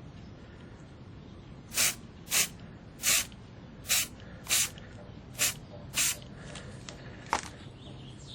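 Aerosol spray-paint can spraying primer in seven short hissing bursts, with a briefer eighth burst about a second later.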